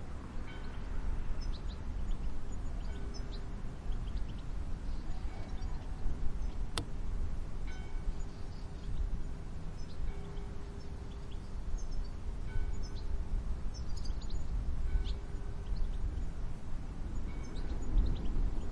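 Short high bird chirps scattered throughout, over a steady low rumble of outdoor noise and a faint held low tone. A single sharp click about seven seconds in.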